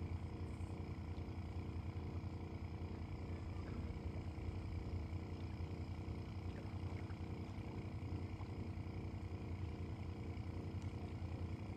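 Steady low mechanical hum of a running motor or engine, with a fast even pulse underneath and no change in pitch.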